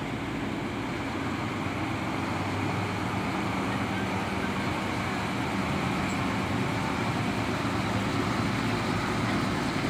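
Diesel truck engine running as a tractor unit pulls a flatbed trailer past, a steady low hum that grows slightly louder.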